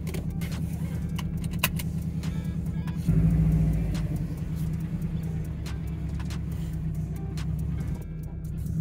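Car engine and road rumble heard from inside the cabin while driving, with scattered small clicks and rattles. The low rumble gets suddenly louder about three seconds in, then slowly eases.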